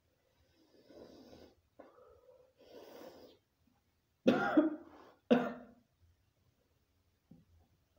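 A man coughing hard twice, about a second apart, after a few softer, breathy exhalations; he is coughing from the burn of an extremely hot chili chip in his mouth.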